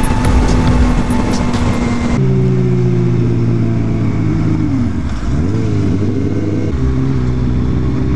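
Wind rushing over the helmet microphone at highway speed with clicks and the motorcycle's engine underneath. About two seconds in it changes abruptly to the clear, steady note of the Yamaha FZ8's inline-four engine, which dips in pitch and climbs back about five seconds in, then settles a little lower.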